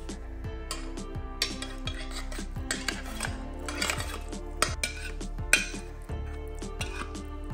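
Tinned tuna being scraped out of its metal can into a stainless-steel mesh sieve: a run of rasping metal scrapes and clinks, the sharpest about five and a half seconds in, over soft background music.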